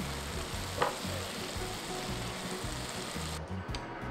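Whole garlic cloves sizzling in a reduced soy-and-rice-syrup glaze in a frying pan, stirred with a silicone spatula, with one light tap about a second in. The sizzle cuts off shortly before the end.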